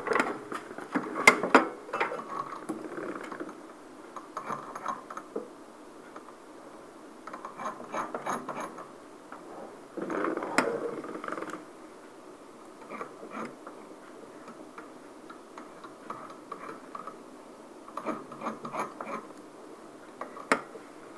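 Intermittent clicks and light mechanical clattering of equipment being handled and adjusted, in short bursts every few seconds with a few sharper single clicks.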